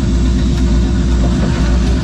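Fishing boat's engine running steadily with a deep, even rumble.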